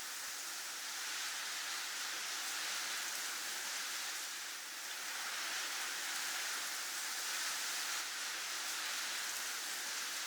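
Snowstorm wind blowing as a steady hissing rush that swells and eases slowly, dipping briefly about halfway through.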